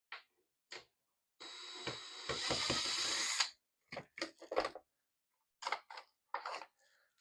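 A small electric motor runs for about two seconds with a steady high whine, louder in its second half, then stops. Scattered clicks and clatters of handled plastic pieces come before and after it.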